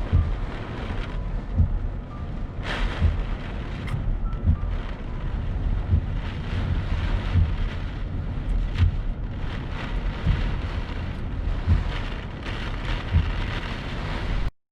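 Typhoon wind gusting and buffeting the microphone with a heavy low rumble, over the hiss of wind-driven rain. The sound cuts out for a moment near the end.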